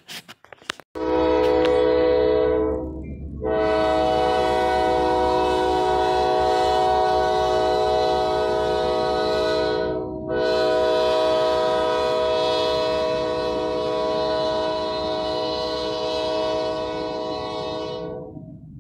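Diesel freight locomotive's multi-chime air horn sounding at a road grade crossing: a short blast, then two long ones, the last cutting off shortly before the end. Under it is the low rumble of the train rolling through.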